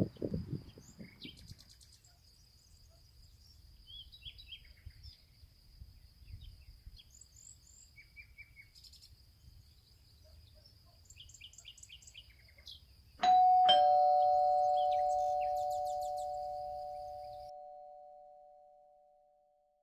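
Birds chirping over a faint steady high hum, then a two-tone ding-dong doorbell chime about 13 seconds in, its two notes ringing on and slowly fading out.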